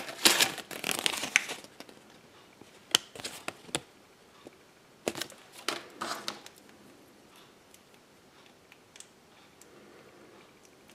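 A thin paper instruction leaflet rustling and crinkling as it is handled, loudest in the first second and a half, followed by a few light clicks and taps of small plastic toy parts being handled and set on the table.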